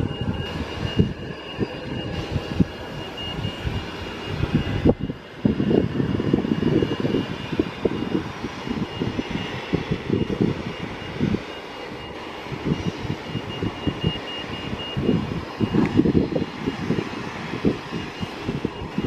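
Boeing 737 airliner's jet engines at taxi power: a steady high tone over a low rumble that rises and falls unevenly.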